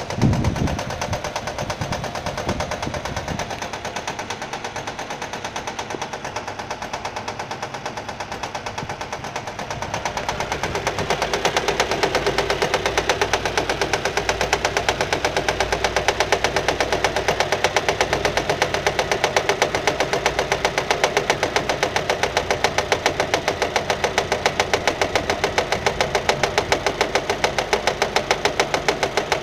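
Nissan Micra 1.2 petrol engine running with a fast, even, rough rattling knock that grows louder about ten seconds in. The noise turned out not to be an engine fault but a fraying alternator belt slapping against the metal body as it turns.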